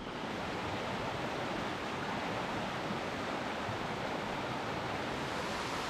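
Steady rushing of flowing water, like a river or stream running close by, an even noise with no breaks.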